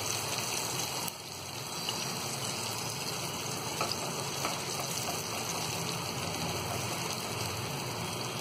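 Marinated mutton chops sizzling steadily in shallow hot oil in a frying pan, with a couple of faint clicks midway.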